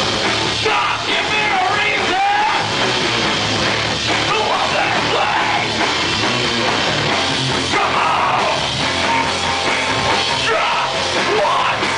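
Live heavy southern-rock/metal band playing loud: distorted electric guitars and a pounding drum kit, with a singer yelling over it.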